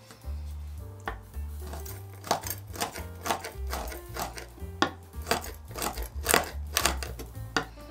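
Chef's knife chopping a bar of white chocolate into shavings on a wooden cutting board: repeated crisp strikes of the blade through the chocolate onto the wood, sparse at first and then coming a couple of times a second, over background music.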